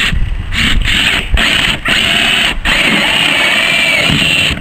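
Cordless drill driving a hole saw through the wall of a plastic cooler, cutting a round hole. It runs in a few short bursts, then in one steady run of about two seconds that stops near the end.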